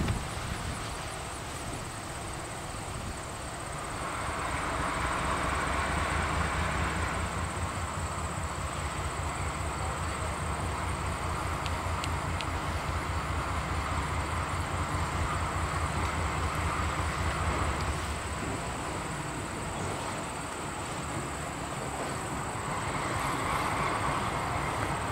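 GE B32-8 diesel locomotive approaching unseen, its engine working with a low throbbing rumble that grows louder about four seconds in and eases near the end.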